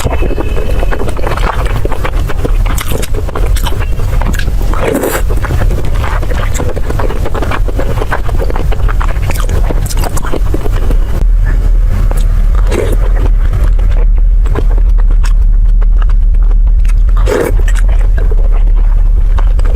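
Chewing and crunching of food close to the microphone, scattered short crackly bites over a loud steady low rumble.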